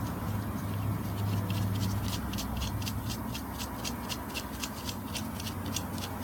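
A run of light, sharp clicks, about four to six a second, over a steady low hum.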